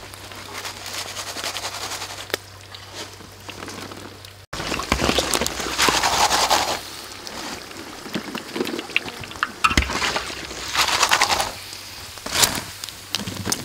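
Hot oil sizzling and crackling in a wok as deep-fried chicken legs are scooped out with a wire-mesh skimmer, oil dripping back into the pan. The sizzle gets louder about halfway through and comes in surges, with a few sharp clicks.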